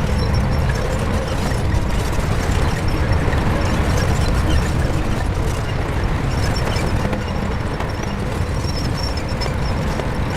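Shantui bulldozer's diesel engine running steadily under load, a dense low rumble with mechanical clatter above it.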